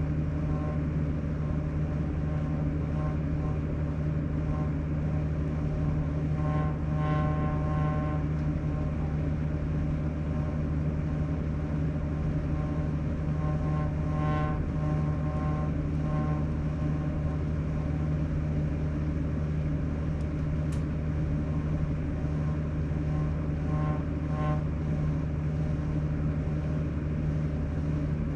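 Sharp AY-J40S-W inverter air conditioner running with a steady low hum, joined three times by a higher tone lasting a second or two. This is the abnormal noise that repairs have not cured, which the owner links to a fault in the unit's frequency.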